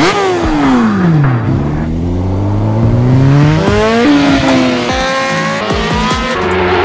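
Kawasaki ZX-10R superbike's inline-four engine through an Akrapovic exhaust, revving hard on track: the pitch drops for about a second and a half as it slows, then climbs through the gears, with gear changes breaking the rise about four, five and six and a half seconds in. Background music plays underneath.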